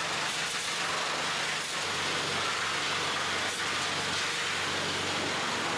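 High-pressure hot-water spray washing red clay off rough ametrine crystals: a steady, even hiss with a faint low hum beneath.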